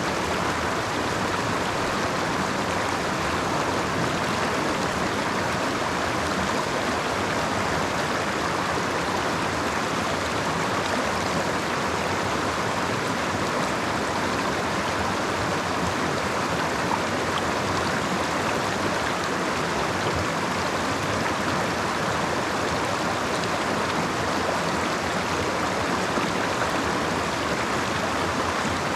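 Creek water flowing in a steady, unbroken rush.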